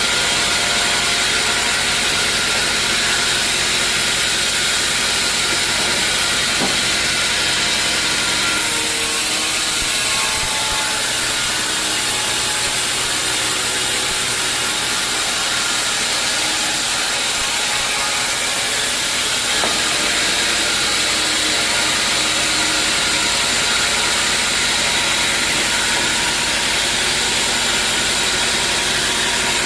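Sawmill machinery running steadily: a loud, constant machine noise with a strong hiss, its tone shifting slightly about nine seconds in and again around twenty seconds.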